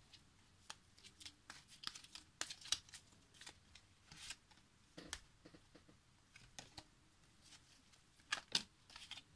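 Faint, scattered clicks and short rustles of a deck of oracle cards being handled.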